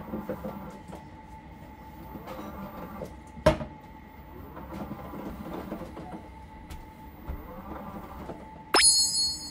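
Cloth towel rubbing and wiping around a ceramic washbasin, with repeated squeaky sweeps and a sharp knock about three and a half seconds in. Near the end a bright ringing tone starts suddenly.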